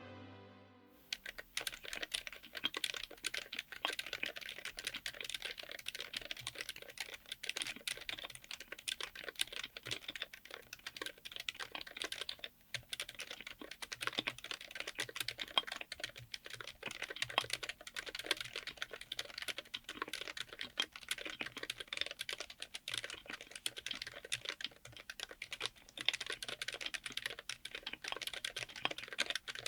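Continuous fast typing on a mechanical keyboard fitted with Kailh BOX Silent Pink silent linear switches, on an FR4 plate in an aluminium case: a dense run of soft, damped keystrokes with only a brief pause midway. Typing starts about a second in, as a fading bit of music ends.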